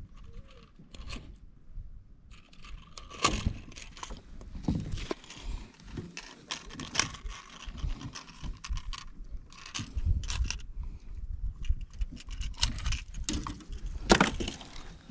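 Irregular light metallic clicks and rattles from pliers, a lip-grip and a lure's treble hooks being handled while a fish is unhooked, with a louder clatter near the end.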